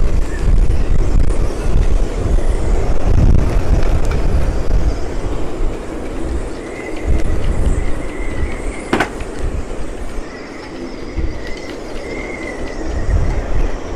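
Storm-force wind gusting hard over the microphone with a deep, buffeting rumble, and a thin wavering whistle from the boats' rigging now and then. There is a single sharp knock about nine seconds in.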